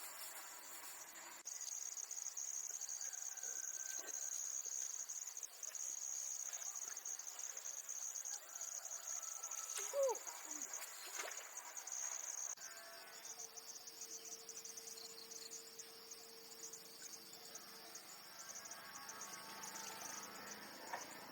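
Insects shrilling in a steady, high, continuous trill that changes about twelve seconds in to a rapid pulsed chirping. A brief sharp sound with a quick pitch slide cuts in about ten seconds in.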